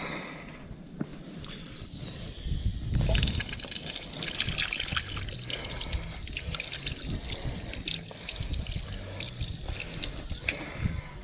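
Water splashing and trickling, a dense run of small splashes. A single sharp knock comes just before it, about two seconds in.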